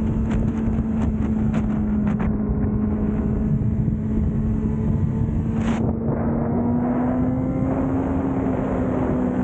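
Motorcycle engine running steadily while riding, its pitch rising slightly in the second half, with wind rushing over the microphone. A few sharp clicks sound in the first two seconds.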